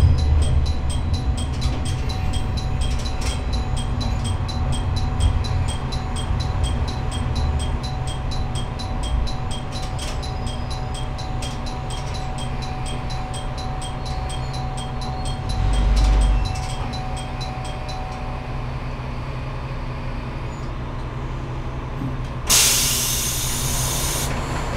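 Diesel railcar running on the rails, a steady low rumble with a faint, evenly spaced ticking. Near the end a short, loud hiss of air, typical of the train's air brakes.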